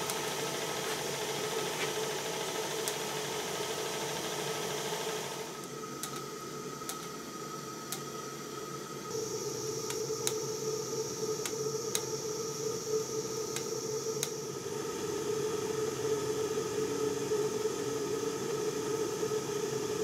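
Stuart 7A model steam plant in steam: a steady hiss with a constant hum from the running engine and boiler. A string of sharp ticks comes through in the middle, and the sound shifts abruptly twice.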